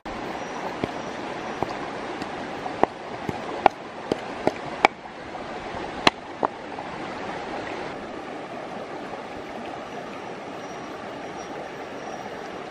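Shallow stream running steadily over rocks. About ten sharp taps sound over the first six seconds or so, a utensil knocking against the bowl as the chili paste is scraped out.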